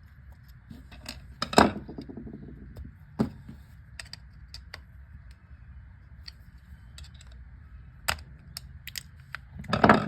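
Small metal clicks and clinks as the parts of a Tillotson chainsaw carburetor and the tools are handled during its disassembly, with a handful of separate knocks, the loudest about a second and a half in and another near the end.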